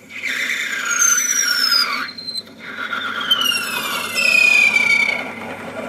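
Lathe parting tool squealing as it cuts through the spinning workpiece to part it off. The high-pitched squeal slides down in pitch twice, with a brief drop-out between the two sweeps, over the low hum of the running lathe.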